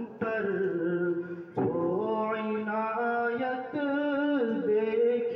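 Background music of a voice singing long held, chant-like notes that step up and down in pitch.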